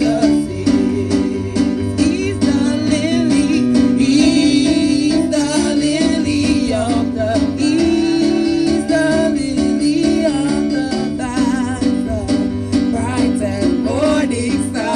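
Gospel worship music: singing with guitar accompaniment and a steady chordal backing.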